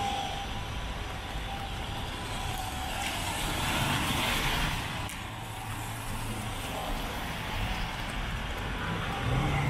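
City street traffic: vehicle engines running with a low hum, and a passing vehicle's hiss that swells and falls away about four to five seconds in.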